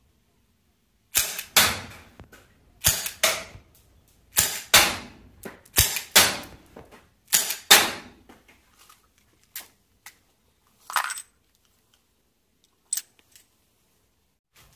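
Marushin M10 Military & Police gas revolver firing five shots in quick succession, each sharp pop followed about a third of a second later by a second crack. A few quieter clicks and a short metallic clink follow near the end.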